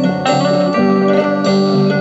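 A mono vinyl single playing music through a refurbished 1960s Pye stereophonic Black Box record player, with sustained notes changing every quarter to half second.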